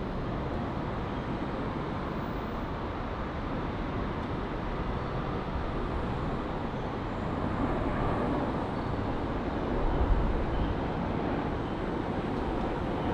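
Jet airliner engine noise heard from beside an airport, a steady low rumble that swells a little about eight to ten seconds in.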